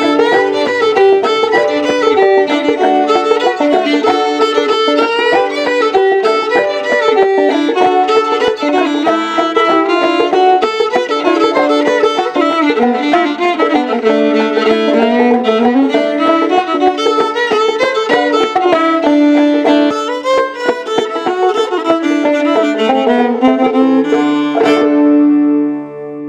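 Old-time fiddle and clawhammer banjo playing an instrumental break, the fiddle carrying the melody over the banjo's plucked rhythm. The tune ends on a held final note about a second before the end.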